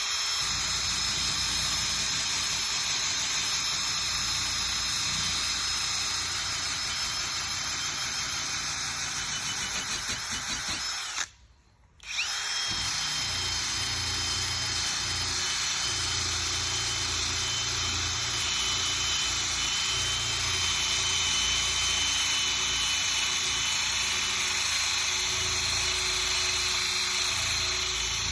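Electric power sander running steadily with a high whine, sanding old paint off a vehicle's hood. It cuts out for about a second a little over a third of the way through, then spins back up and runs on.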